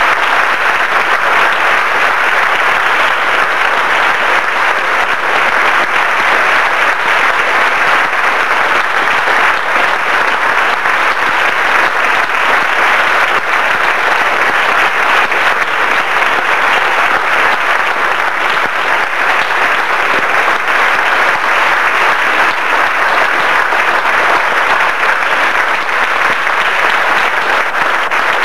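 Audience clapping: a long, steady, dense round of applause.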